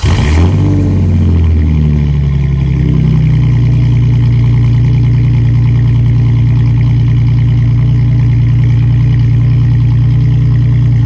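An engine just started, its pitch rising and settling over the first three seconds into a steady idle.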